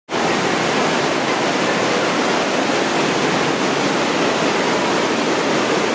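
Fast-flowing floodwater rushing through a flooded subway tunnel: a loud, steady, even rush of turbulent water.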